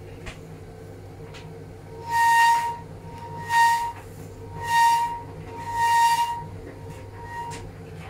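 Indesit tumble dryer running with a steady hum and a loud, high-pitched squeal that repeats about every second and a quarter, growing weaker near the end. The squeal comes from the drum's worn teardrop bearing.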